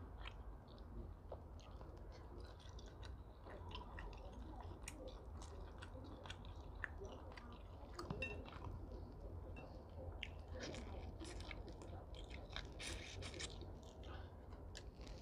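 A person chewing and biting shrimp close to a clip-on microphone, with many small wet clicks and smacks of the mouth, over a steady low hum.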